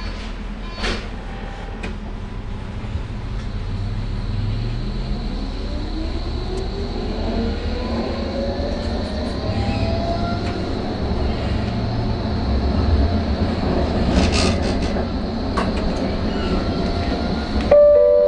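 Flexity Berlin tram running on street track, its traction motor whine rising in pitch as it gathers speed, with wheel and rail rumble and a few sharp clicks. A two-note chime sounds near the end.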